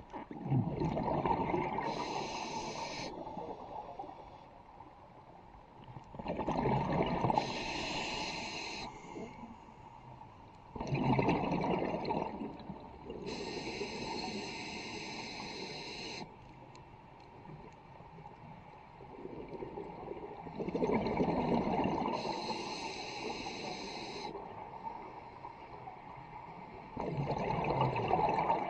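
Scuba diver breathing through a regulator underwater. Hissing inhalations alternate with bubbling bursts of exhaled air, each burst strongest at the start and then fading. About five breath cycles come every five to seven seconds, with a longer pause near the middle.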